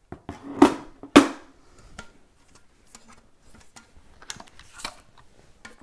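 Large-format camera backs being handled and set down, with two sharp knocks about half a second apart near the start, then lighter clicks and rustling.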